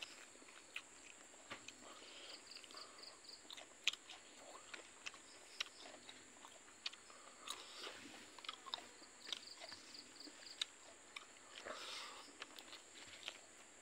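Close-up eating sounds: irregular chewing with small, sharp clicks and crunches as cooked silkworms and rice are eaten by hand. A short run of faint high chirps comes twice in the background.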